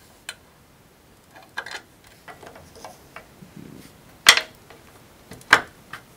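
Light metal clicks and taps of small metal brackets being handled and fitted onto an extruded metal screen-frame profile, with two sharper clicks in the second half.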